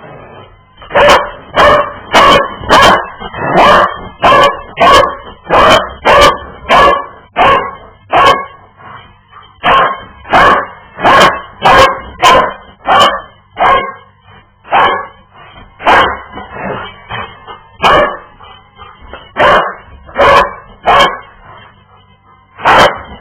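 Dog barking over and over, about two loud barks a second at first, then in sparser runs with pauses in the second half.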